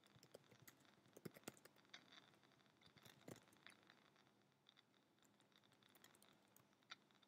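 Near silence: faint room tone with scattered soft clicks and taps and a faint steady high tone.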